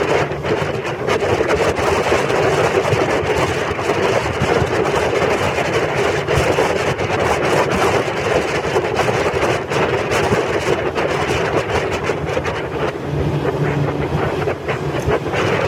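Motorboat engine running steadily, with wind on the microphone.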